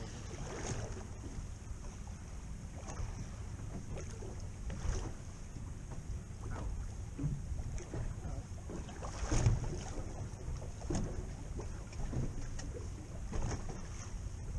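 Wind on the microphone aboard a small boat at sea: a steady low rumble, with a few brief louder knocks, the strongest about nine seconds in.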